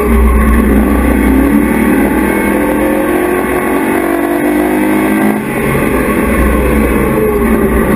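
Race truck engine heard from the in-car camera at racing speed, its pitch climbing and falling, with a brief drop in level about five and a half seconds in before it climbs again.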